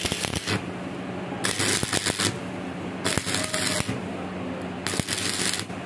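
Stick (arc) welding: the electrode's arc crackling and sizzling, rising into louder spurts about a second long every second and a half, over a steady low hum.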